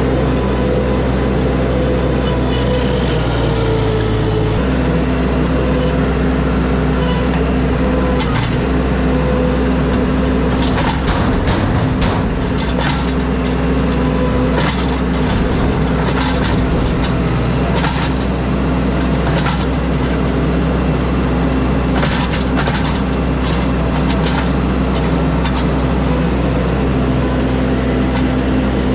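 Heavy-equipment engine running steadily, its pitch dropping a little about four and a half seconds in. Through the middle there is repeated cracking and snapping of brush and branches.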